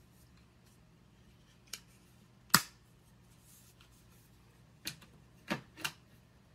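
Five short sharp clicks or taps of small hard objects. The loudest comes about two and a half seconds in, and the last three come close together near the end.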